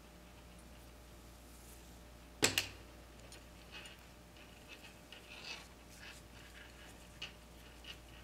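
Faint rustling and scratching of nylon paracord being handled and pulled through a knot, with scattered small ticks. A sharp double click about two and a half seconds in is the loudest sound.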